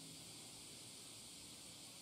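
Near silence: a faint, steady high-pitched hiss with no distinct event.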